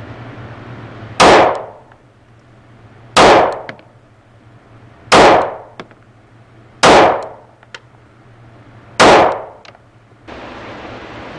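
Sig Sauer P365 pistol fired slowly, five shots roughly two seconds apart, each with a short echoing tail off the walls of an indoor range.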